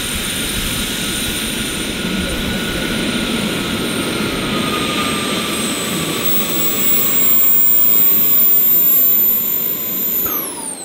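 Four JetsMunt 166 model jet turbines of a large RC Airbus A380 model running at taxi power, a steady high whine over rushing exhaust noise. Near the end the whines drop steeply in pitch as the turbines spool down.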